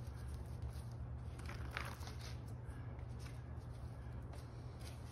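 Faint handling sounds of glue-coated white oak strips being laid together and slid into a stack on a workbench: scattered short rustles and soft clicks, over a steady low hum.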